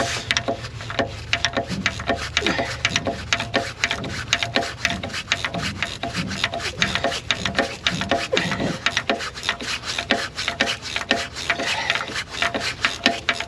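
Rapid, continuous rubbing and scraping, several short strokes a second.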